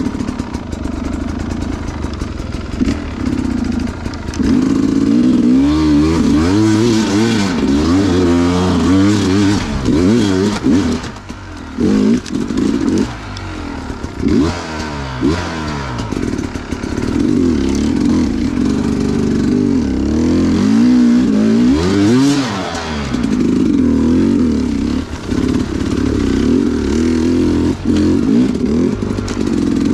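Two-stroke dirt bike engine being ridden hard on trail, revving up and down over and over, with quick surges and drops in pitch and a brief easing off about eleven seconds in.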